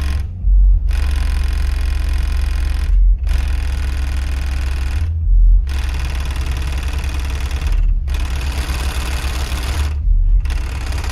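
Window glass and frames rattling in a loud buzz, shaken by a JTR Captivator ultra-low-frequency subwoofer playing a test tone of about 13 Hz, over a heavy low rumble. The rattle breaks off briefly about every two and a half seconds.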